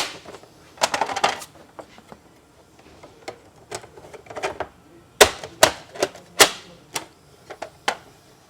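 Sharp wooden clicks and knocks from wooden beehive frame parts being handled and assembled. There is a loud knock at the start, a clatter about a second in, then a run of knocks about every half second from about five seconds in.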